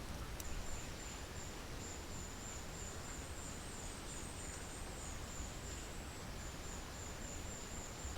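An insect's high-pitched, pulsing trill, held almost without a break, over a steady outdoor hiss. It stops abruptly at the very end.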